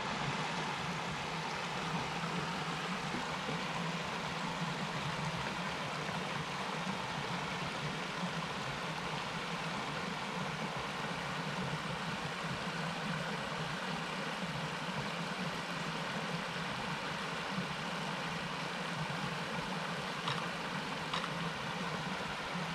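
Big Lost Creek's water rushing steadily over rocks, an even wash of noise with no break.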